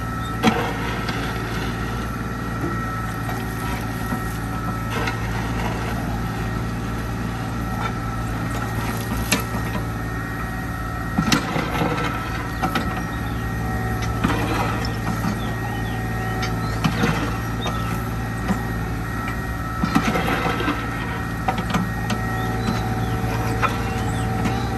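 Kubota U-30-5 mini excavator's diesel engine running steadily under load, with a steady high whine over it, while the bucket digs and dumps soil. Scattered knocks and clanks from the bucket and boom break in now and then, mostly in the middle of the stretch.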